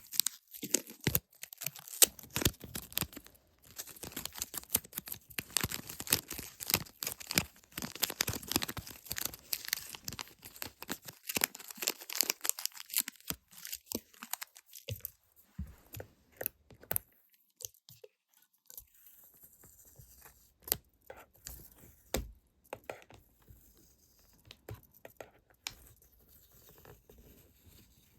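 Stickers being peeled off a sticker sheet close to the microphone: a dense run of crackly peeling and crinkling for about the first half, then sparser sticky clicks and taps.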